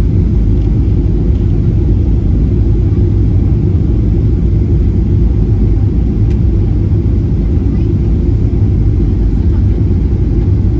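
Steady low rumble inside the cabin of a Boeing 737-800 airliner, engine and airflow noise heard from a window seat.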